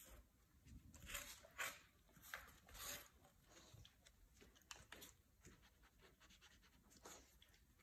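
Faint, quick breath sounds from a husky nosing at an empty bowl and the floor: a run of short puffs about every half second in the first three seconds, then fainter and more scattered.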